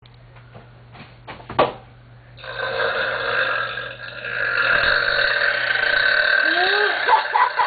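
A person's long, drawn-out burp lasting about five seconds, starting a couple of seconds in and dipping briefly about halfway through. A sharp click comes shortly before it.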